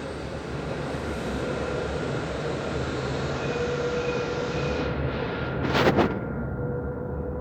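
Dubai Tram running along the track: steady rolling noise with a faint, even whine. A loud double knock comes about six seconds in.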